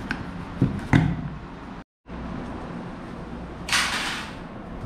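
Handling noise from unpacking a bicycle's shipping carton: two thumps about a second in, then a short rasp of packing material near the end, over a steady low hum. The sound cuts out completely for a moment just before the midpoint.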